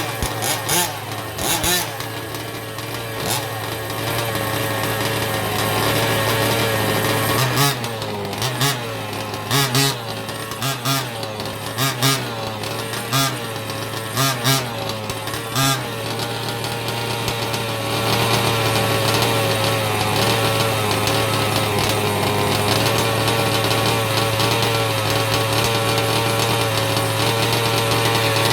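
Small two-stroke petrol engines of 1/5-scale RC cars running, with a series of short, evenly spaced throttle blips through the middle, then a steady drone.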